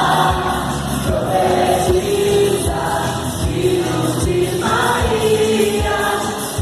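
Music with several voices singing together over a steady beat.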